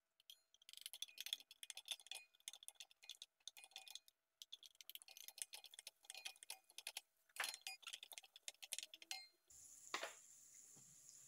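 Hot cooking oil crackling and popping in a frying pan as chopped onion is sautéed, with quick, irregular pops. Near the end it settles into a steadier hiss.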